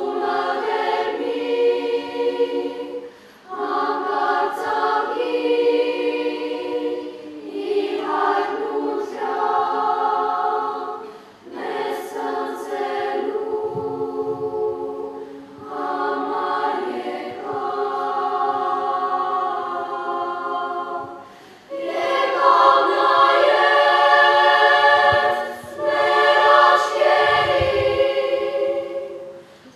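Children's chamber choir singing in Armenian, several voices in harmony. The song comes in phrases with short breaks between them, and grows louder about two-thirds of the way through.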